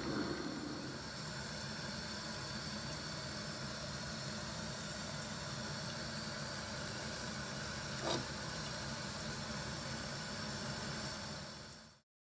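Steady hiss and low hum of a pot of fish curry simmering on the stove, with a single short click about eight seconds in. The sound fades out near the end.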